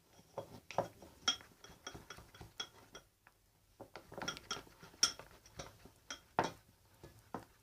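A mixing utensil clinking and tapping against the bowl while stirring a thick, creamy slime mixture: irregular clinks with a short high ring, a little more than one a second.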